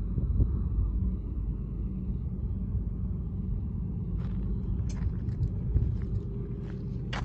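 BNSF diesel locomotives' engines rumbling low and steady. From about halfway in, a scatter of sharp clicks and crunches sits over the rumble.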